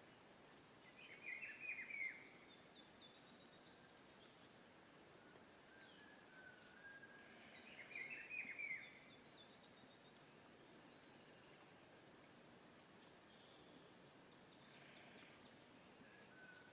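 Faint birdsong: one bird gives a short, fast chattering phrase twice, about six seconds apart, among many thin high chirps and a few short whistled notes from other birds, over a quiet steady hiss.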